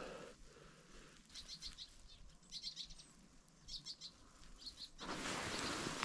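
Small songbirds giving faint, high, quick chirps in short clusters of several notes, four times. Near the end comes about a second of rustling noise.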